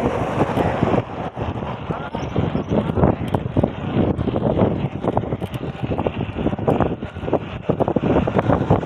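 Wind buffeting the microphone during a bicycle ride, with frequent irregular knocks and rattles from the bike on the road.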